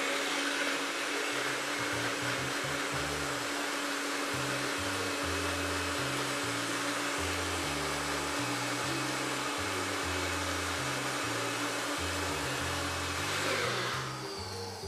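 NutriBullet personal blender running steadily, puréeing roasted red peppers for a pepper pesto, its motor giving an even hum under the whirring. Near the end it winds down and stops.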